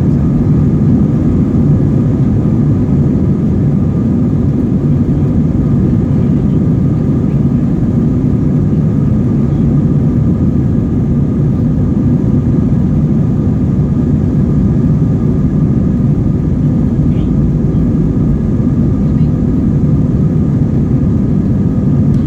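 Airbus A321-231 cabin noise during takeoff: the IAE V2500 turbofans at high thrust give a loud, steady roar with a deep rumble and a few steady higher fan tones.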